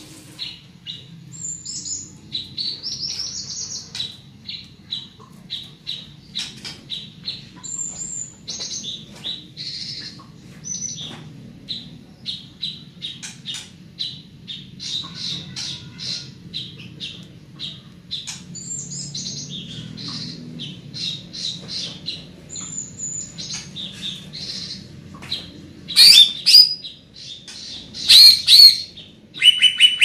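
A caged cucak ijo (green leafbird) singing: a long run of quick, high chirping notes and short warbled phrases with hardly a pause. A few much louder, harsher notes come near the end.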